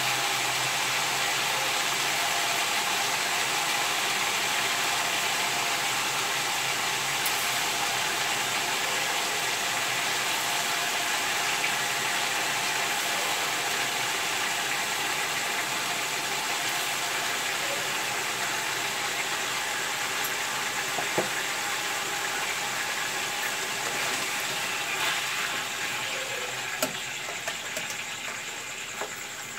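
Chicken pieces sizzling in oil in a frying pan, a steady hiss that eases a little near the end. A few light clicks of the spatula against the pan come in the last few seconds.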